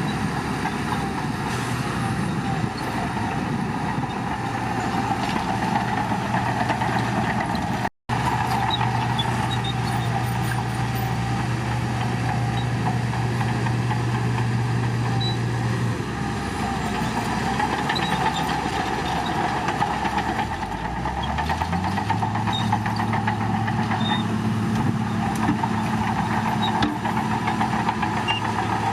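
Bulldozer diesel engine running steadily, with a constant mid-pitched whine and rattle over it. The sound cuts out for an instant about a third of the way in; about halfway the engine note drops, then climbs to a higher, steady pitch as the engine revs up.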